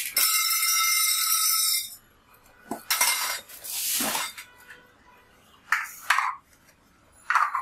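Parts of a steel-and-plastic clothes drying rack being pulled from a cardboard box and handled: a loud, steady scraping screech for about two seconds at the start, then several short knocks, clinks and rustles as the pieces are set down.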